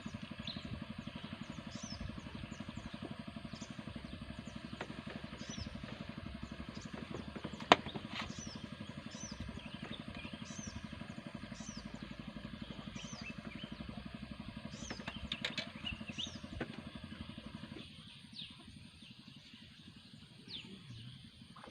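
Small engine running steadily with a fast even firing pulse, then cutting out about eighteen seconds in. A single sharp click stands out about eight seconds in.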